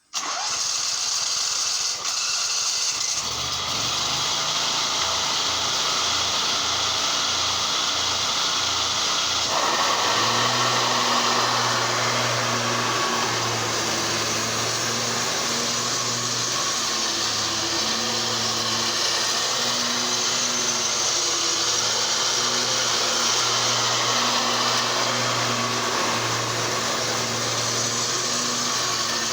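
Zero-turn lawn mower running under load while mowing, a steady loud hum and whir of engine and cutting blades. The engine's low note comes in a few seconds in, grows stronger about ten seconds in, and wavers as the mower moves around.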